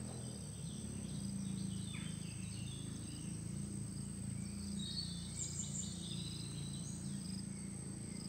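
Plantation ambience: a steady high-pitched insect drone with scattered bird chirps and calls, over a low steady hum.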